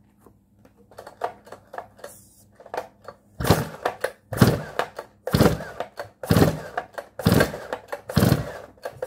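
Stihl MS311's 59 cc two-stroke engine being cranked with its recoil starter: about three seconds in, a run of about six hard pulls, one a second. It is a start on full choke with the decompression valve pushed in, pulling until the engine first pops.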